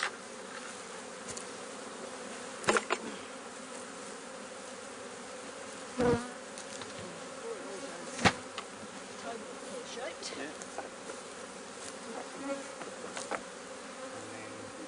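Honey bees buzzing steadily around an opened Langstroth hive, with three short sharp knocks about 3, 6 and 8 seconds in.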